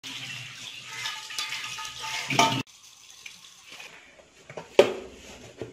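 Tap water running into a steel kitchen sink with some clatter of a pot, stopping abruptly about two and a half seconds in. Then quiet room tone, with a single sharp knock near the end.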